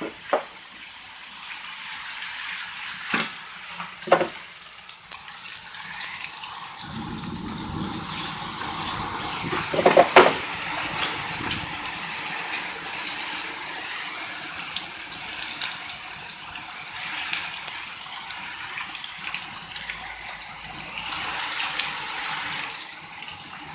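Hurricane-force thunderstorm winds driving heavy rain, a steady hiss with gusts swelling and easing. A few sharp knocks in the first few seconds and a louder burst about ten seconds in.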